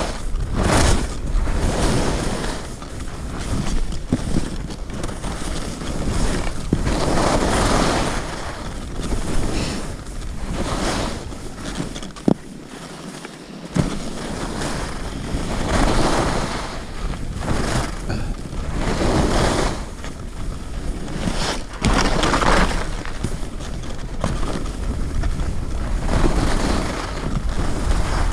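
Skis carving down a groomed snow slope. A hissing swish of the edges on snow swells with each turn every couple of seconds, over a steady rumble of wind on the microphone. Around the middle it goes briefly quieter, with a couple of clicks.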